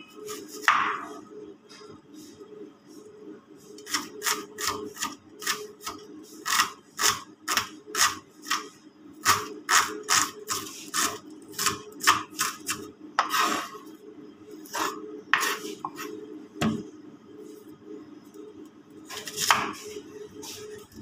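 Kitchen knife chopping onion on a cutting board: a run of sharp strikes about two a second, with short pauses between bursts of cutting.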